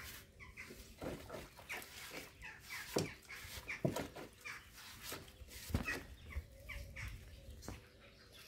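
Chicken clucking in short, repeated calls while being washed by hand in a basin of water, with a few sharp splashes among them.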